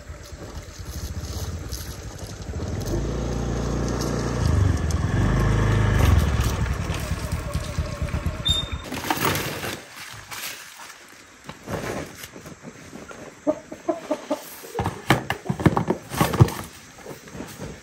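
Honda motor scooter riding up and stopping, its engine getting louder as it nears over the first few seconds, then falling silent about nine seconds in. After that come knocks and rustling as a cardboard box is loaded onto it, with chickens clucking.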